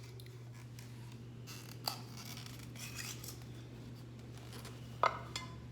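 Double-sided tape and a plastic bracket being worked by hand: scraping and crinkling with two sharp clicks, about two seconds in and about five seconds in, over a steady low hum.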